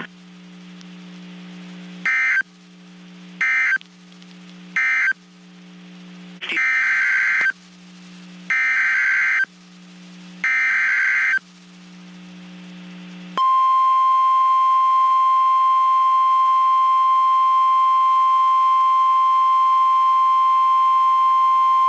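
NOAA Weather Radio Emergency Alert System signals: three short digital data bursts, then three longer screeching SAME header bursts of about a second each, with a low hum between them. These are followed by the steady 1050 Hz warning alarm tone, held for about nine seconds, which announces a new severe thunderstorm warning.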